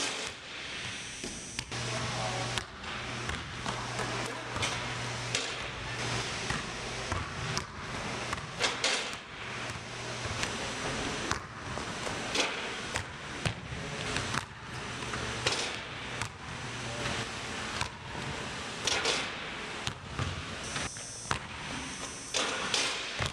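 Repeated basketball dunks on a portable hoop: the rim clanging and ringing as the ball is slammed through, mixed with the ball bouncing and shoes landing on the hardwood. A series of sharp knocks spread through the whole stretch, over a steady low hum in the first half.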